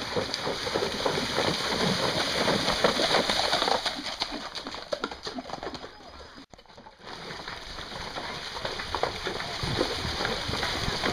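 Horses' hooves splashing through a shallow stream ford, over the rush of water. Birds call in the background, including a pigeon-like cooing. The sound breaks off briefly just past the middle.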